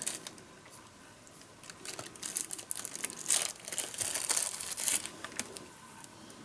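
Thin clear plastic bag crinkling and rustling as it is pulled open and peeled off a small charger part by hand, in irregular bursts that come mostly in the middle.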